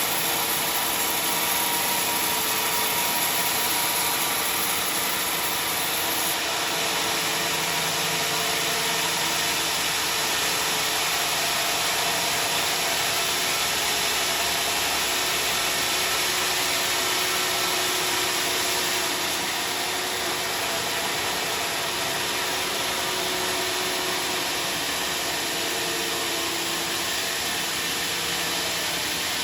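Industrial band sawmill running steadily, its motor and blade giving a continuous rushing noise with faint wavering tones, slightly quieter about two-thirds of the way through.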